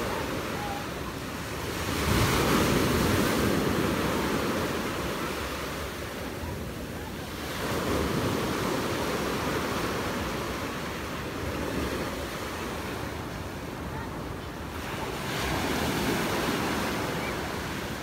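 Black Sea surf breaking and washing up the beach, the noise swelling and easing in slow surges about every six seconds.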